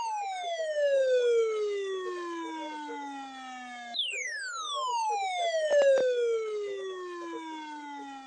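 Midland ER310 weather radio's alert alarm sounding: a siren-like tone that slides down from high to low over about five seconds, then jumps back up and falls again, repeating without stopping. A few brief clicks come about six seconds in.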